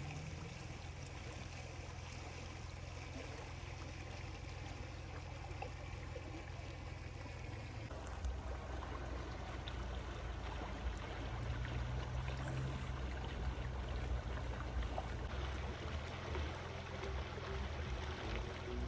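Muddy stream flowing fast past a microphone held just above the water: a steady rushing of water with a low rumble underneath, a little louder from about eight seconds in.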